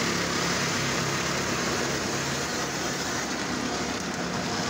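Automatic car wash spraying water and soap over the car, heard from inside the cabin: a steady rushing hiss.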